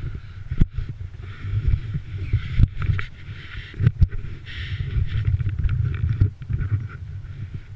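Camera handling noise: a rumbling, rubbing sound with irregular knocks as the camera is jostled and turned over in the hand.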